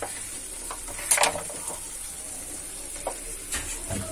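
Chicken sizzling in a pan while a steel spoon stirs through it as soy sauce and tomato ketchup are mixed in, with one loud scrape of the spoon about a second in and a few lighter knocks near the end.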